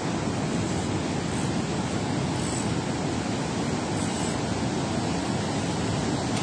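Steady rush of water pouring out of a dam spillway and churning below it.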